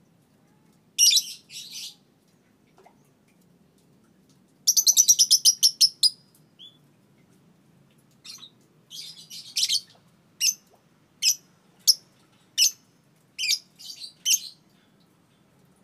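A 2.5-month-old Fischer's lovebird calling: a short shrill burst, then a rapid chattering run of about ten notes, the trill that keepers call 'ngekek', followed by a string of sharp single chirps at about one every second.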